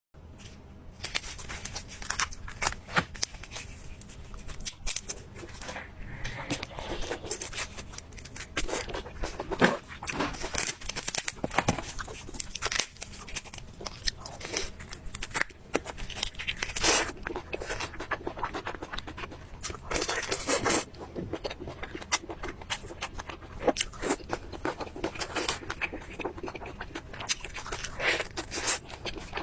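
Close-miked eating sounds: irregular crunching, tearing and chewing of food.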